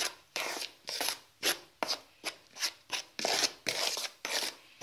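Metal spoon stirring and scraping dry gram flour and ground spices around a bowl: a steady run of short scraping strokes, about two or three a second.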